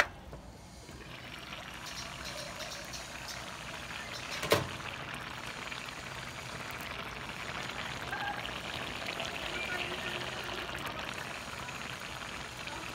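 Coconut-milk stew bubbling at a boil in a metal pan, a steady bubbling hiss that builds over the first second or two. One sharp knock about four and a half seconds in.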